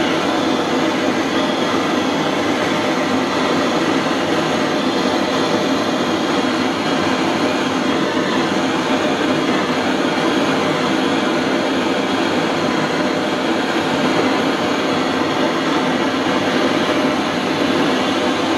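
Gas blowtorch flame burning steadily with an even rushing noise that does not change, as it heats a metal piece to soldering temperature.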